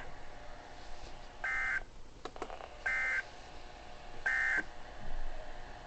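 Three short, buzzy digital data bursts from a NOAA Weather Radio broadcast, heard through a weather radio's speaker, each about a third of a second long with about a second of hiss between them. This is the Specific Area Message Encoding (SAME) end-of-message code that closes the Required Weekly Test.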